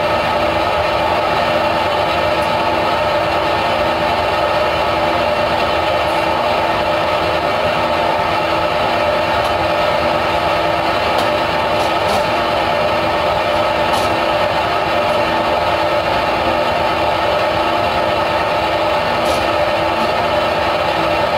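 A machine running steadily: a constant motor drone with a steady whine, with a few faint clicks over it.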